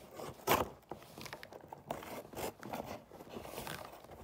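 Utility knife slicing through packing tape on a cardboard shipping box: a series of short rasping cuts and cardboard scrapes, the loudest about half a second in.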